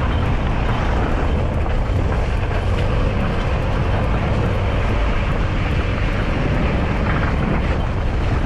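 Toyota SUV driving along a rough dirt track: a steady rumble of engine and tyres, with wind buffeting the microphone held out of the window.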